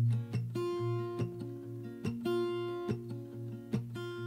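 Background music: an acoustic guitar picking and strumming in a steady rhythm, without vocals.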